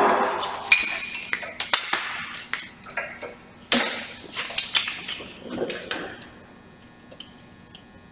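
Metal clinking and clattering as glad hand caps are handled and fitted onto the air brake glad hand connectors: a scatter of sharp clinks and knocks, the loudest about four seconds in, thinning out to faint ticks in the last two seconds.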